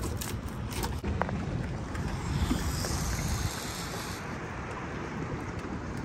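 Wind buffeting the microphone over river water lapping against a small boat's hull, steady throughout, with a few light clicks in the first second or so.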